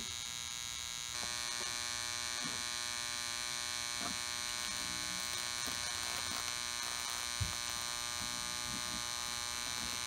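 Steady electrical buzz of a homemade microwave gun's two microwave-oven transformers and magnetrons running, a dense hum with a bright high whine, getting louder about a second in. A single short low thump about seven seconds in.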